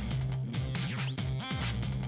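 Background electronic music with a steady beat and deep bass.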